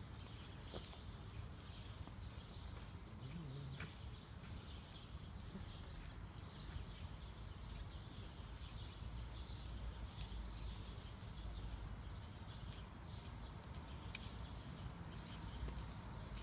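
Small birds chirping on and off over a low steady rumble, with scattered footsteps crunching on gravel.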